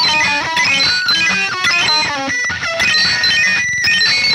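Art-noise-metal trio playing loud with two 12-string guitars: fast runs of picked notes stepping up and down in pitch over a dense low-end wash.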